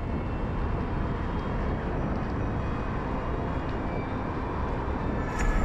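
Wind buffeting the microphone of a camera on a moving bicycle: a steady low rushing noise, with a sudden louder gust near the end.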